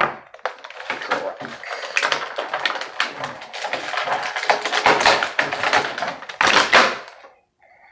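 Wrestling action-figure packaging being handled and pulled apart: a dense, loud run of plastic clicks and crinkles, with a louder burst of crackling about six and a half seconds in.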